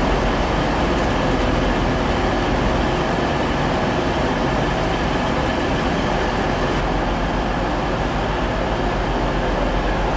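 Diesel locomotive engines running steadily under a station's overall roof: an HST power car pulling out and a Class 50 diesel locomotive approaching.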